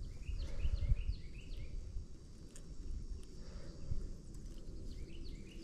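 A bird calling in quick runs of short, downward-hooked chirps, about five in the first second and a half and a few more near the end, over a low rumble.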